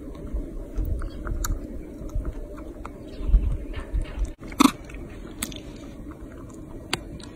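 Baby macaque biting and chewing a chocolate bar: a run of small irregular crunching clicks, with one sharper click about four and a half seconds in.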